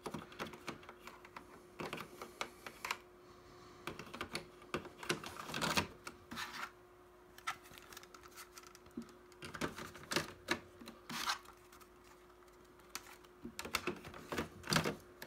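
Plastic ink cartridges clicking and knocking as they are handled and pushed into the cartridge slots of a Ricoh SG3110DNW printer, in irregular clusters of sharp clicks, over a faint steady hum.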